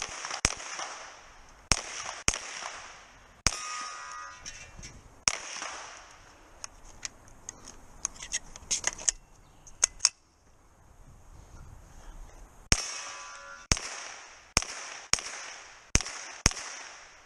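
Pistol-caliber carbine shots fired in a practical-shooting stage. The shots come singly or in pairs, each with a short echo, with softer sharp cracks in a cluster midway. After a quiet pause of about two seconds, a quicker string of about seven shots comes near the end.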